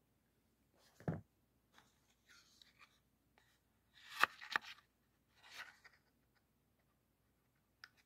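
Faint handling noises from a pocket knife and its cardboard box: a low thump about a second in, light scraping and rustling, then two sharp clicks about half a second apart midway, the loudest sounds, followed by more rustling.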